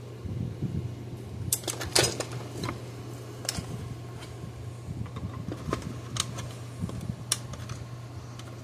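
Scattered clicks and taps of hands handling a large capacitor and its wires inside a plastic fence-charger case, the loudest cluster about two seconds in, over a steady low hum.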